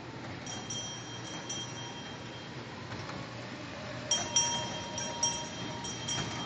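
Small ride-on mall train's bell ringing in a run of repeated dings, louder as the train passes close about four seconds in.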